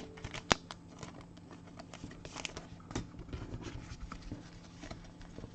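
Trading cards being handled and sorted by hand: faint scattered clicks and light rustles of card stock, with one sharp click about half a second in.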